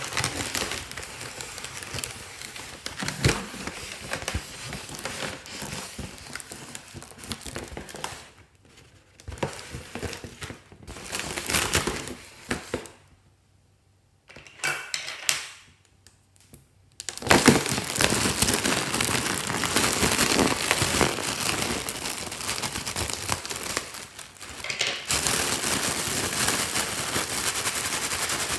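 A foil balloon crinkling and crackling as hands handle and squeeze it, in stretches with short pauses, then without a break for roughly the last ten seconds.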